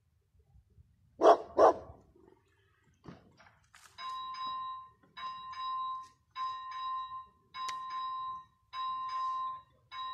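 A dog barks twice, about a second in. Then, about four seconds in, the ZV-01 electronic bell of the level crossing's AŽD 71 warning signal starts ringing: a steady tone struck in a slow, even rhythm, about one stroke every second, warning that a train is coming.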